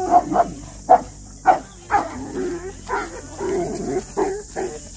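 Dogs barking repeatedly, about eight sharp barks with rougher sounds between them, in a tense standoff between leashed dogs and a stray whose hackles are up.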